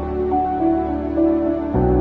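Background music: soft new-age music with held tones over a sustained low bass, the chord changing about three-quarters of the way through.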